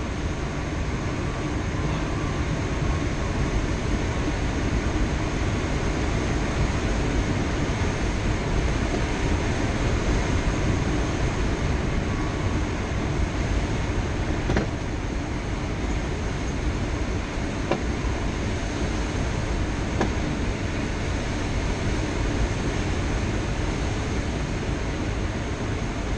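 Steady rush of airflow over the canopy, heard inside the cockpit of a Schleicher K13 two-seat glider in flight, with a faint steady high tone above it and a few faint clicks around the middle.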